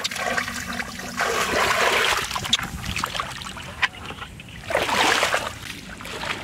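Water splashing and trickling in two main bursts, about a second in and again near five seconds, as a bucket holding caught fish is handled in shallow paddy water.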